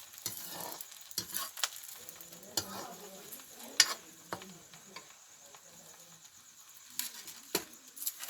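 Food sizzling in a pan, with a utensil stirring and knocking against the pan several times at uneven intervals; the loudest knock is about four seconds in.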